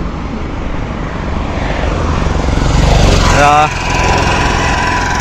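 Highway traffic going past, with one vehicle passing close and loud from about two to three and a half seconds in.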